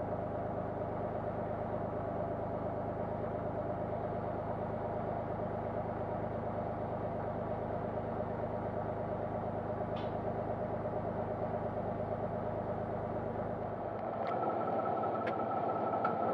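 A tractor engine idling steadily. About two seconds before the end the sound changes and grows louder.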